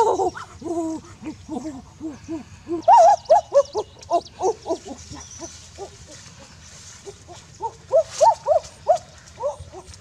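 Captured mother duck calling over and over in distress while held in the hands: short rising-and-falling cries, two or three a second. They grow louder again about three seconds in and near eight seconds.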